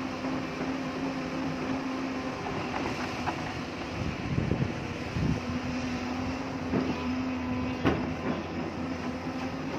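Hyundai excavator's diesel engine running steadily, with a string of knocks and clatters from the bucket working hard rock, clustered around the middle and again near the end.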